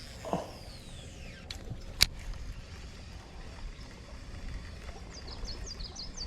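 A sharp single click about two seconds in, with a fainter one just before it, over a low steady outdoor rumble. A bird gives a quick run of high chirps near the end.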